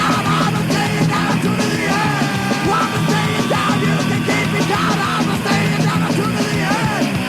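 Thrash metal band with a punk edge playing loud and steady, with distorted electric guitar, bass and drums.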